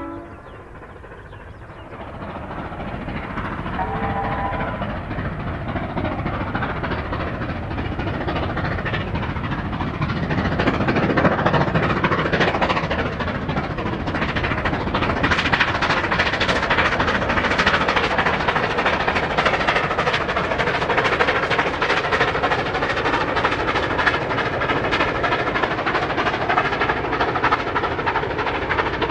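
Steam locomotive 3801, a C38-class Pacific, gives a short whistle about four seconds in while still far off. Its working exhaust and the train then grow from faint to loud as it comes up and runs past, with a fast beat of exhaust and wheel noise from about halfway on.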